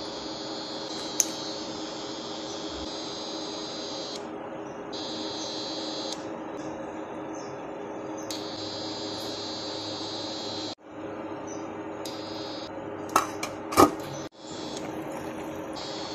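A steady droning hum from a kitchen appliance over a boiling pot, with a couple of sharp metal clinks of a spoon against the pot about two seconds before the end.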